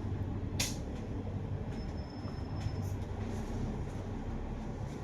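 Steady low rumble of a double-decker bus's engine and road noise, heard from inside the cabin while the bus is moving, with one sharp click about half a second in.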